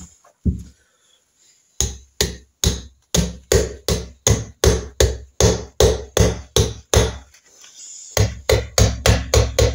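Hammer knocking on a Norton Commando gearbox casing to free the stuck inner gearbox cover from the main casing. A single knock, then a steady run of blows about three a second, a brief pause, and a faster run of about five a second near the end.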